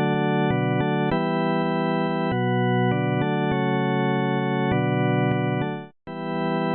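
Background music: sustained, steady electronic chords that change every second or so. They fade out about six seconds in and start again right after.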